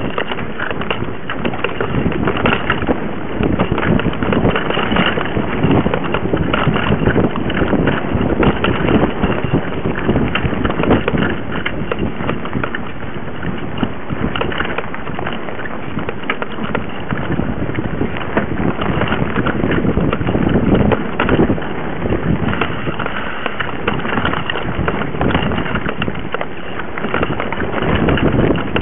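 Mountain bike ridden over a rough dirt forest trail, heard from a camera mounted on the bike: a continuous clatter of rattles and knocks from the bike and camera mount jolting over the ground, with tyre noise on the dirt.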